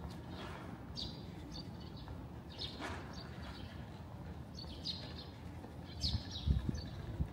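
Small birds chirping: short, high calls about once a second over a low steady outdoor hum, with a few low thuds near the end.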